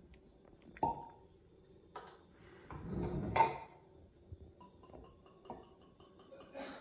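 A few separate clinks and knocks of a glass vodka bottle and its stopper being handled on a wooden counter, the loudest about three and a half seconds in. Near the end, vodka starts pouring from the bottle into a plastic measuring cup.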